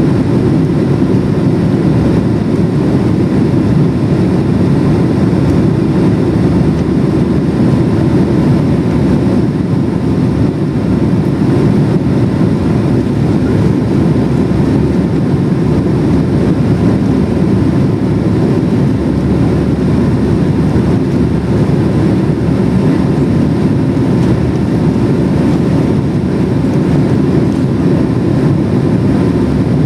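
Steady cabin roar of a Boeing 767-300 in flight, heard from a window seat over the wing: an even, low engine and airflow noise with a faint steady tone above it.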